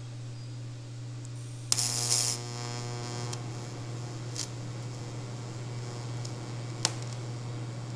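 TIG welder humming steadily, then the arc struck about two seconds in with a short loud hissing crackle and buzz, then welding on with a steady hiss. It is building up a weld ball on a broken exhaust bolt stub in a cylinder head, so a nut can be welded on to back the bolt out.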